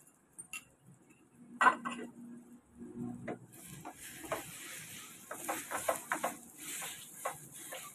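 Egg and sliced bitter gourd sizzling in a frying pan, with a wooden spatula scraping and knocking against the pan in quick strokes. A single sharp clink of dishware comes just under two seconds in, and the sizzling starts up about halfway through.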